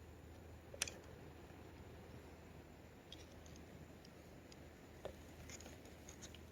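Near silence: a faint steady low hum with a few scattered light clicks, the sharpest about a second in.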